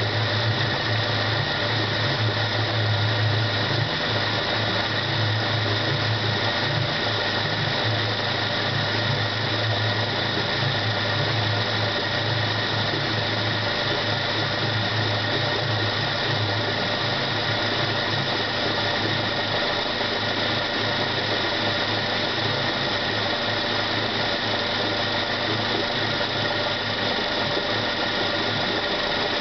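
Mercury 90 hp four-stroke EFI outboard engine running steadily, with a steady high-pitched whine over a low hum that eases off about halfway through.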